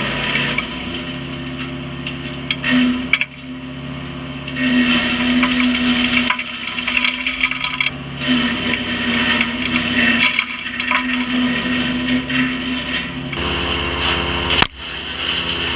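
Small 15 hp wood chipper running while chipping oak: a steady engine hum, with repeated spells of crunching and grinding as pieces of wood go through the blades.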